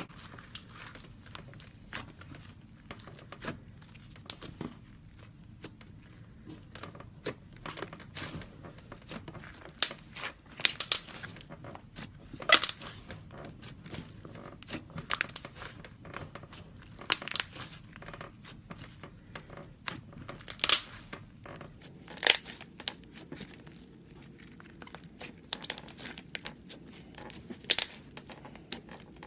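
Slime being squished and stretched by hand, giving irregular sticky clicks and crackling pops, with a handful of louder pops scattered through.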